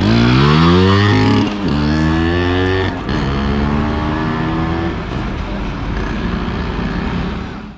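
Yamaha RX135 single-cylinder two-stroke engine accelerating hard from a launch, its pitch climbing and then dropping back at upshifts about one and a half and three seconds in. It then climbs once more and holds near steady at speed.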